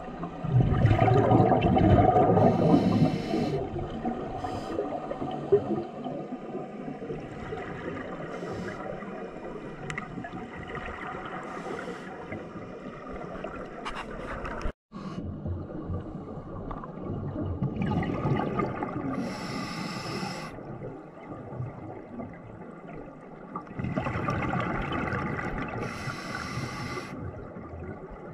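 Scuba regulator breathing and exhaust bubbles heard underwater through a GoPro housing: a muffled, steady bubbling and rushing, with louder surges of bubbles a few times.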